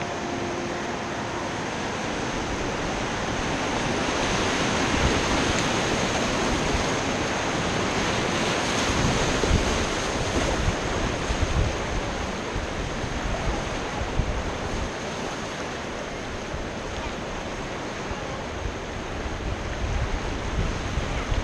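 Whitewater of a river rapid rushing and splashing, louder for several seconds in the first half, with wind buffeting the microphone.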